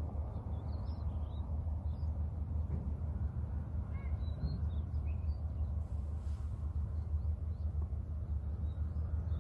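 Scattered faint bird chirps and calls over a steady low rumble of outdoor ambience.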